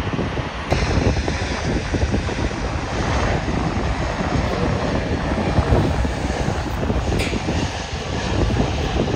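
Jet engines of a Boeing 777-200ER on final approach, a steady low rumble, with wind buffeting the microphone.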